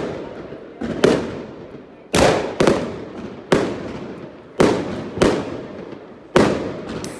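Aerial firework shells bursting overhead one after another: about eight sharp bangs at irregular intervals of roughly a second, each trailing off before the next.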